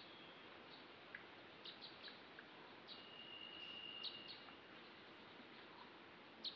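Faint outdoor night ambience: scattered soft chirps and clicks over a low hiss, with one thin, steady whistle-like tone lasting about a second and a half around the middle.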